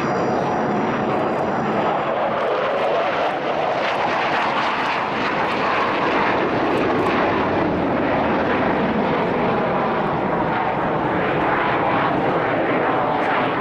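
Chengdu J-10 fighter jet engine, a steady loud rushing roar as the single-engine jet flies aerobatic manoeuvres.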